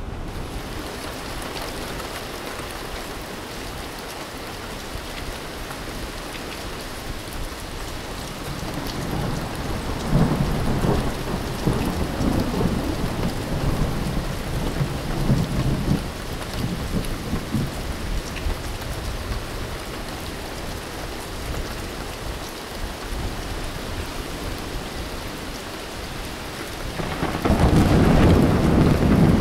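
Steady rain with rolling thunder; the rumble swells about a third of the way in and again, louder, near the end.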